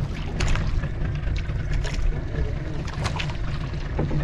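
Steady low rumble aboard a small fishing boat at sea, with wind on the microphone, broken by a few short sharp noises.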